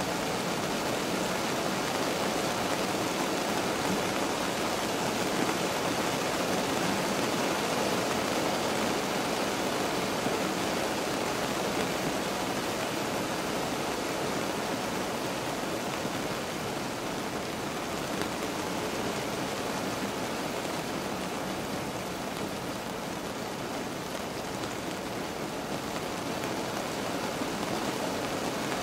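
Steady rain falling on a car, heard from inside the cabin as an even hiss.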